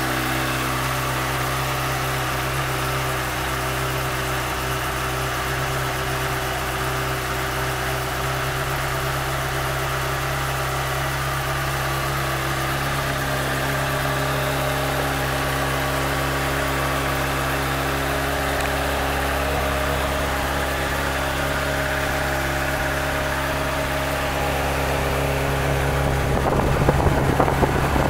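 Honda CBR600RR's inline-four engine idling steadily. It grows louder and uneven near the end.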